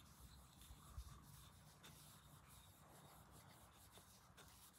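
Faint rubbing of a cloth over a wooden soldering-iron handle as a coat of paint is worked in, with a few light ticks.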